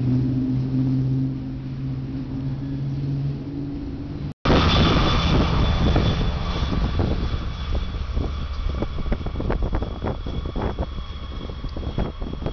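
Freight train of covered hopper cars rolling by with a steady low drone. After a short break about four seconds in, a Ferromex diesel-electric locomotive passes close, its diesel engine running under loud, irregular clicking of wheels over rail joints and a steady high whine.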